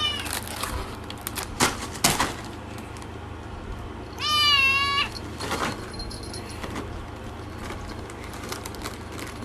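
A single meow-like animal call about four seconds in, rising and then held for just under a second. A few sharp clicks come before it, over a low steady hum.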